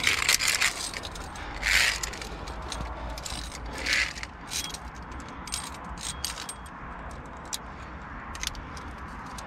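Via ferrata lanyard carabiners clinking and clicking against the steel safety cable, with three short scrapes in the first four seconds and then a run of light metallic clicks.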